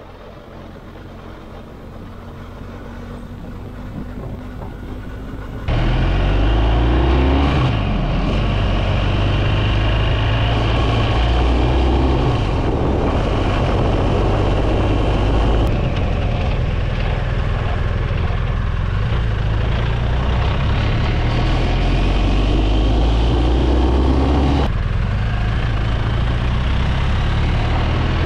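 BMW R 1250 GS Adventure motorcycle's boxer-twin engine running on the move, its steady low note stepping between speeds, under rushing wind and road noise. It fades up over the first few seconds, jumps abruptly louder about six seconds in, and changes abruptly again near the end.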